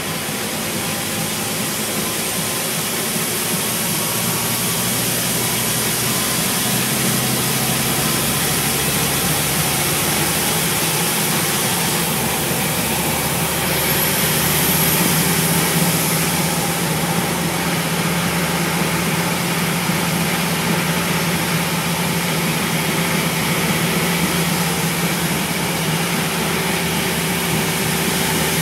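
Diesel engine of a Scania N230UB single-decker bus running steadily, heard from inside the saloon together with the bus's road and body noise, with a slight swell about halfway through.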